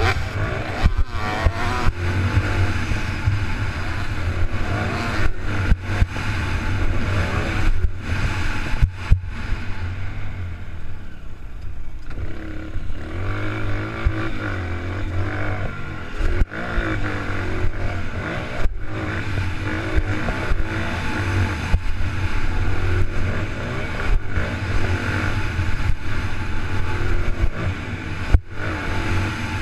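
Dirt bike engine running and revving on a motocross track, the pitch rising and falling with the throttle, heard through an action camera riding along, with frequent knocks and wind on the microphone.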